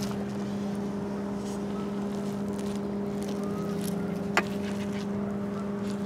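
A steady low machine hum with one higher overtone, unchanging throughout, and one sharp click about four and a half seconds in.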